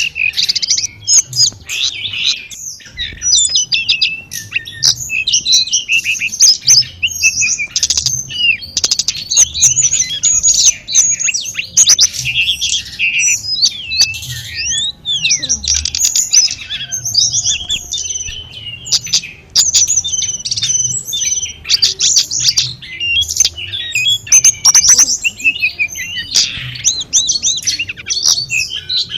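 Tledekan gunung songbird singing nonstop: a dense run of rapid, high chirps, trills and quick sweeping notes with hardly a pause. Beneath it runs a faint low murmur of running water.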